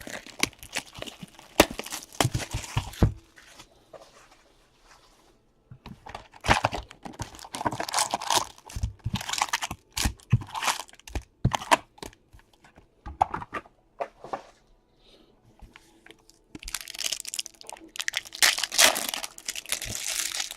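Trading-card box packaging and pack wrappers being torn open and crinkled by hand, in spurts of crackling and tearing with two short pauses, densest near the end.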